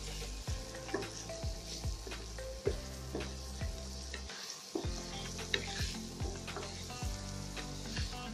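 Chopped vegetables sizzling in oil in a non-stick wok while a wooden spatula stirs them, scraping and knocking against the pan about twice a second. A steady low hum runs underneath and cuts out briefly about halfway through.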